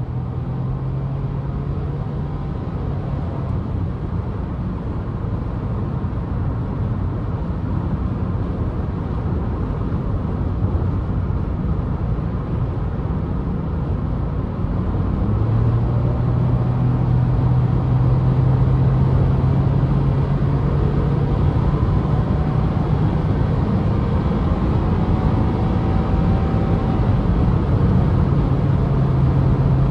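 Car engine and tyre noise inside the cabin at motorway speed, a steady engine drone that gets louder about halfway through as the car is accelerated hard.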